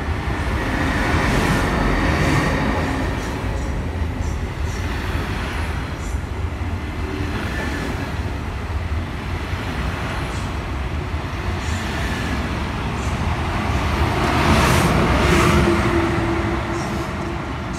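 SNCB/NMBS M6 double-deck coaches rolling past along the platform, their wheels rumbling steadily on the rails. Near the end the train's electric locomotive, class 19 number 1923, goes by: this is the loudest part, with a steady electric hum over the rumble.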